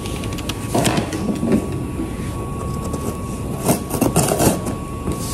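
Cardboard parcel being handled and its packing tape cut open with kitchen scissors: rustles and scrapes, then a quick run of sharp snips and scrapes from about three and a half seconds in.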